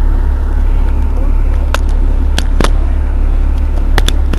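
Irisbus Citelis 12 city bus engine idling with a steady low drone. Several sharp clicks come through the middle. Right at the end the engine note shifts.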